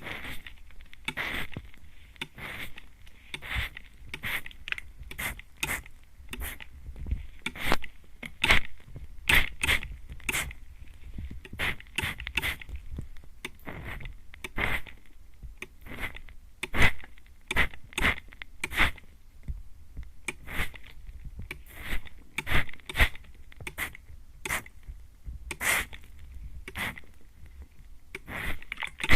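Hand-pump mist sprayer (atomizer) spraying close onto an ear. Many short hissing sprays come one or two a second at irregular spacing, some louder than others.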